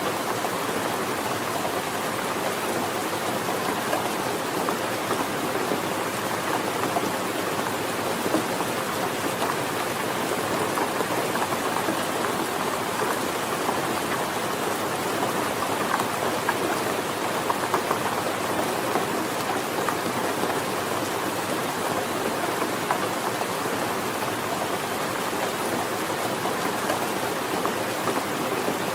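Steady rain falling, a dense, even patter of drops that keeps up without a break.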